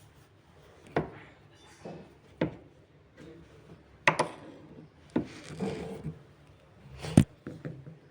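Irregular sharp knocks and clatters of tools and hard parts being handled during washing machine gearbox repair work, about eight in all, the loudest about four seconds in and just after seven seconds.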